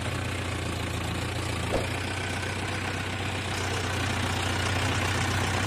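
Mahindra Yuvo 575 tractor's four-cylinder diesel engine running steadily as the tractor drives on, pulling a trolley loaded with soil, heard from the driver's seat.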